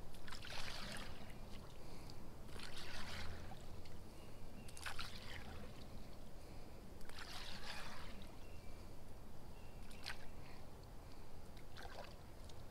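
Water splashing and sloshing lightly around a kayak in short swishes every two to three seconds, with a few sharp clicks near the end.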